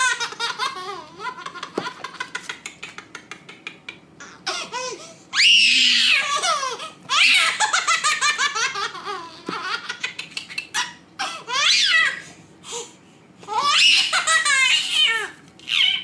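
A baby laughing in repeated fits of high-pitched laughter, each lasting a second or two, with short pauses between them.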